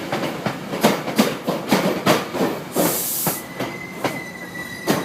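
Metrolink commuter train's passenger cars rolling past, the wheels clacking over rail joints several times a second. A short high hiss comes about three seconds in, and a thin steady wheel squeal sets in just after.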